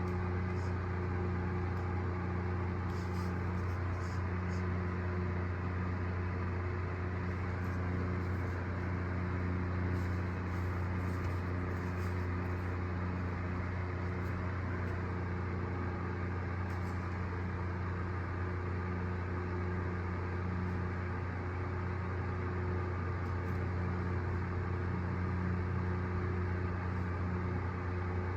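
A steady low machine hum that does not change or break.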